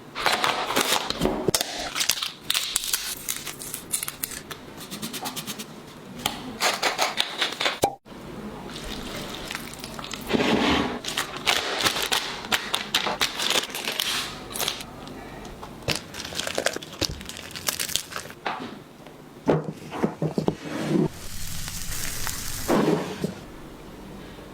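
Food-preparation sounds: bursts of rapid crackling and crinkling with occasional knocks, broken by a sudden cut about eight seconds in.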